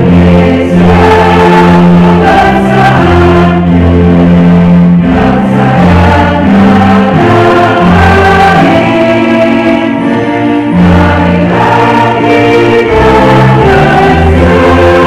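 A group of voices singing a Christian praise-and-worship song over band accompaniment, with a strong bass line changing notes every second or so.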